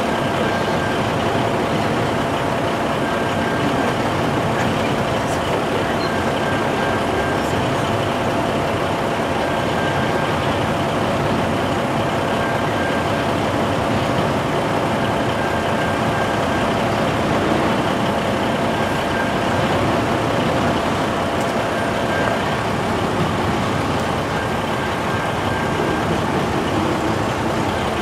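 Double-stack intermodal freight train cars rolling steadily past a grade crossing: a continuous rumble and clatter of steel wheels on rail at an even level.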